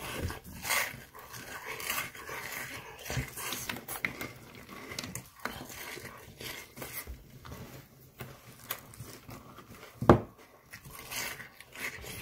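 A person slurping and lapping milk and Cap'n Crunch Strawberry Shortcake Crunch cereal out of a cupped hand, with wet chewing and panting between mouthfuls; one sharp, loud smack about ten seconds in.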